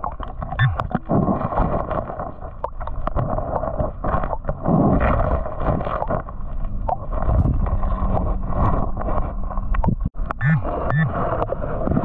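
Water sloshing and gurgling with irregular clicks and knocks of stones as a rocky creek bed is fanned and dug by hand.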